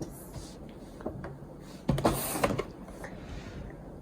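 Small toy cars and their plastic packaging being handled: scattered light clicks and knocks, with a louder clatter about two seconds in.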